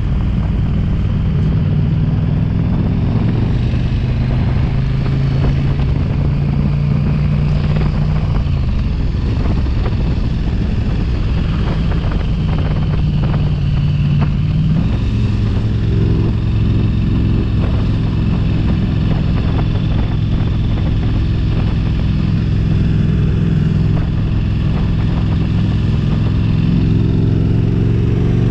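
Motorcycle engine running while riding, over a steady rushing noise. Its pitch shifts as the speed changes, about a third of the way in and again near halfway.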